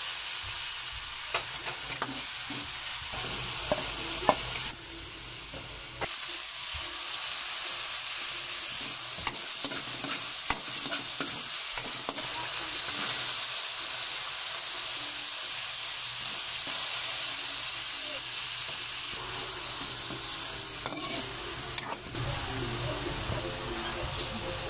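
Ground pork and garlic sizzling in hot oil in a metal wok. A metal spatula stirs through them, with a few sharp clicks and scrapes against the pan.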